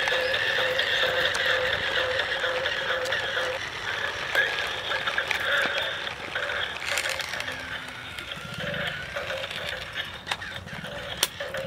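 Battery-powered toy stunt motorcycle running on asphalt: its small electric motor and gears whirring, with rattles and scattered clicks from the plastic wheels. A steady electronic tone sounds for the first few seconds, then stops.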